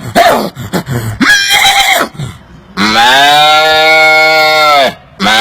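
A man imitating animals with his voice: a couple of seconds of short, broken calls, then a long, steady cow moo of about two seconds, and a second moo beginning near the end.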